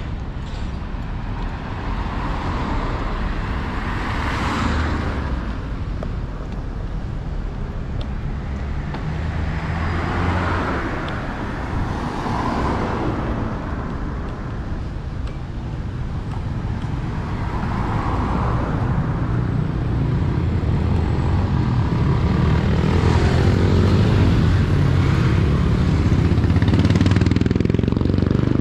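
Street traffic: a steady low rumble with several vehicles passing one after another, each swelling and fading over a few seconds. A heavier, deeper engine rumble builds over the last third.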